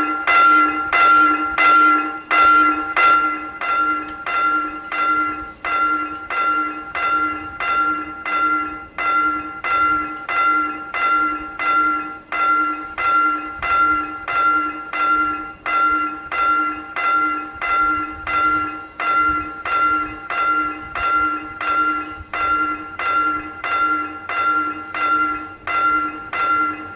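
Railroad level-crossing warning bell ringing in an even, unbroken rhythm of about two strokes a second, the signal that a train is approaching. A low hum comes in under the bell near the end.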